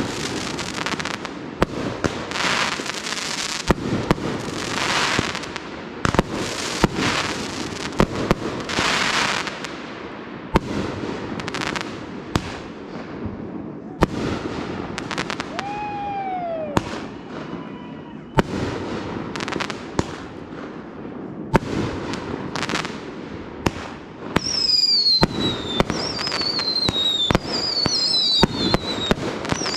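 Fireworks going off: a steady run of sharp bangs from bursting shells, with crackling in the first several seconds. Midway there is one lower whistle that falls in pitch. Near the end come several high whistles in quick succession, each falling in pitch.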